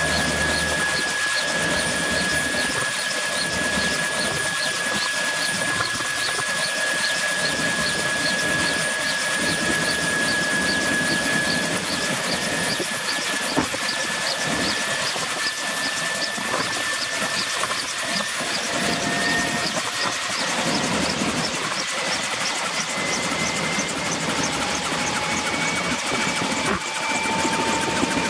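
Kaman K-MAX (K-1200) helicopter starting up: its turboshaft engine gives a high whine that slowly rises in pitch over a steady rushing noise while the intermeshing rotors spin up. A faint, even pulsing gradually quickens, and a lower whine joins and climbs near the end.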